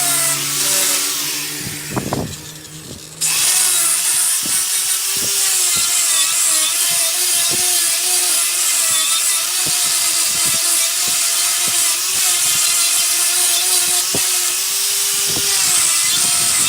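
Wood lathe running with a turning tool cutting a spinning wood blank: a steady motor hum under a loud hiss of cutting. The cutting sound drops away about two seconds in and comes back abruptly a second later.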